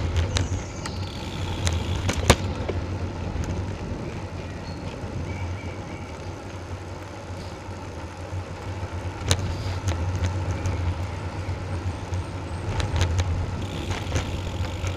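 Steady low rumble of wind and road noise on a bicycle-mounted action camera's microphone as the bike rolls along, with a couple of sharp knocks, one about two seconds in and one about nine seconds in.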